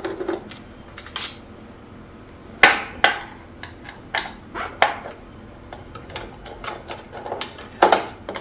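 Scattered sharp metallic clicks and knocks of a Phillips screwdriver and loose screws being handled against the all-metal base plate of a Hoover U4008 upright vacuum, with the loudest knocks a little under three seconds in and near the end.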